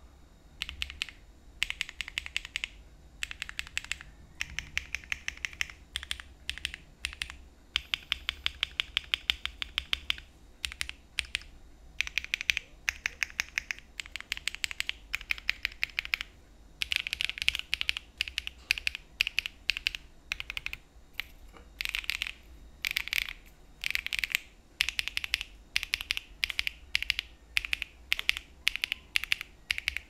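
Typing on a Jris75 mechanical keyboard with stock HMX Macchiato linear switches, built plateless with switch foam and case poron foam: fast runs of keystrokes in bursts separated by short pauses.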